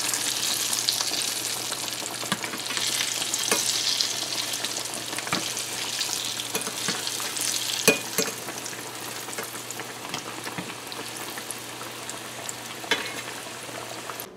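Egg-and-flour-coated fish cakes frying in hot oil in a stainless steel pan: a steady crackling sizzle, with a few sharp clicks of metal spoons against the pan as the cakes are turned. The sizzle eases a little after about eight seconds.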